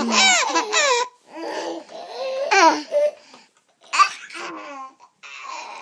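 Babies laughing in repeated bursts, loudest in the first second, with a short lull about three and a half seconds in. The laughter is set off by their mother's sneeze.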